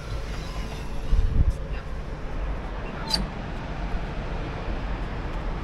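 Wind buffeting the microphone in a deep, gusty rumble that swells hardest about a second in, with a couple of light clicks.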